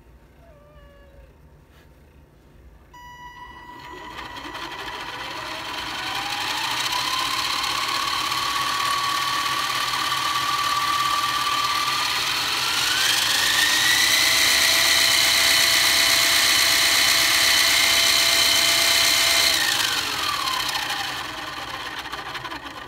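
Electric motor spinning up the fan and compressor stages of a 3D-printed turbofan model: a whine comes in, rises in pitch in two steps with a growing rush of air, holds steady, then falls as it spins down near the end.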